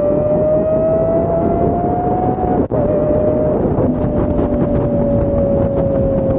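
Lamborghini Aventador's V12 engine held at high, steady revs while cruising at speed, its pitch rising slowly and then easing down, with a brief break about two and a half seconds in. Wind noise rushes underneath.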